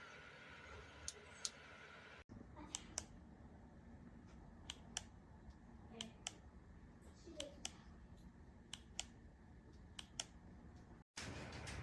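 Faint steady hum of a small flush-mount ceiling fan running, with about a dozen light, irregular clicks scattered through it.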